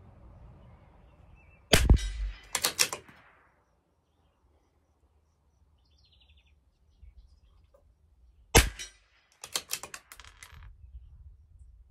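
Two shots from a CZ 457 LRP bolt-action .22 LR rifle firing Eley Bullseye Pistol X, about seven seconds apart. Each sharp report is followed within a second by a quick run of metallic clicks as the bolt is worked to eject the case and chamber the next round.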